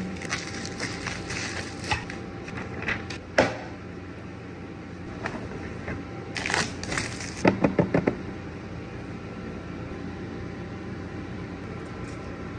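Packaging handled while a box is unboxed: scattered crackles, clicks and rustles, with a sharp click about three and a half seconds in and a cluster of louder knocks and scrapes a little past halfway.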